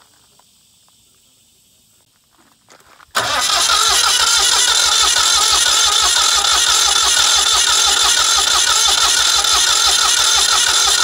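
Diesel engine of a 1991 Miller Big 40G welding generator starting up abruptly about three seconds in, catching almost at once, then running steadily with an even low beat.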